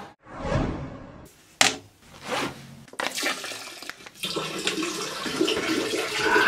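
Water rushing and splashing in a small room, steady through the second half.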